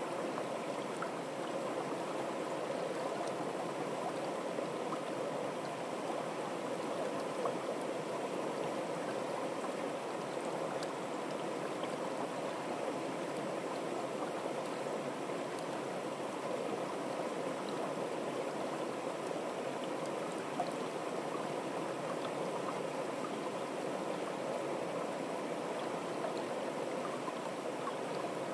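Shallow, fast-flowing stream running over stones, a steady, even water sound.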